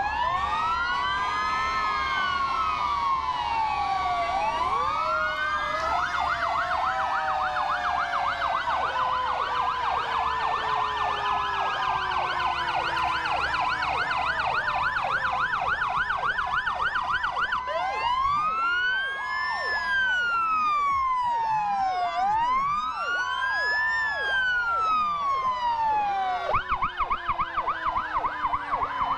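Several fire truck sirens sounding at once as the trucks pass in a line, overlapping slow rising-and-falling wails with fast yelps. Underneath runs a low siren tone that slowly falls. A fast yelp starts up again near the end.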